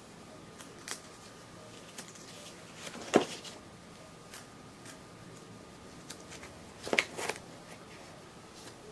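Paper pages of a ring-binder catalog being turned by hand: scattered rustles and flicks, the loudest about three seconds in and twice around seven seconds in.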